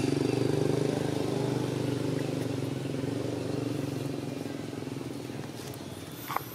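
An engine running steadily and fading gradually as it moves away, with a short sharp click near the end.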